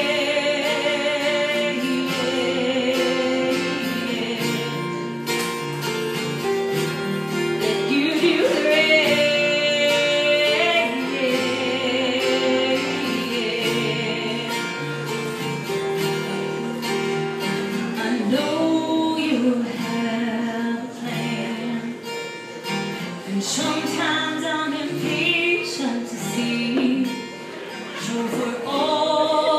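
Live acoustic country music: two acoustic guitars played together, with a woman singing long, wavering notes over them.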